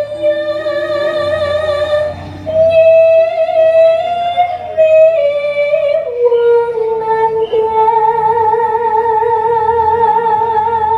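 A female Javanese sinden singing into a microphone, holding long drawn-out notes with a wide, wavering vibrato; about six seconds in she steps down to a lower note and holds it. A faint, steady low instrumental accompaniment sits beneath the voice.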